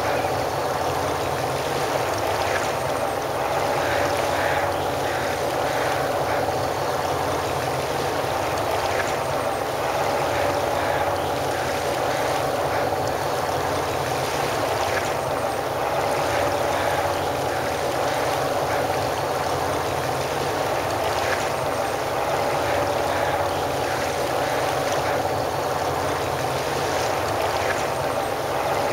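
Steady hum of ship machinery with two held tones, over a constant rush of moving water.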